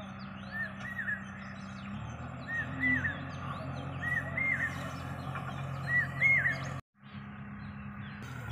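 A bird chirping over and over in short paired notes, about every one and a half to two seconds, over the steady low hum of diesel machinery idling. The sound drops out for an instant near the end.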